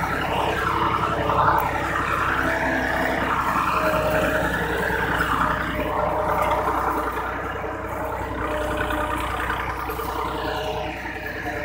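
Small electric motor and gearbox of a homemade toy tractor whirring steadily as it drives along, the pitch wavering with the load and a little quieter in the second half.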